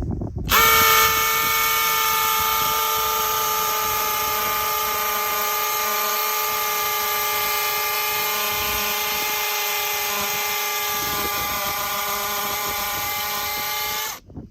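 Two Makita cordless hammer drills, a 40V and an 18V, hammer-drilling into white limestone together with quarter-inch masonry bits. They start about half a second in, run steadily with a high motor whine, and stop abruptly near the end.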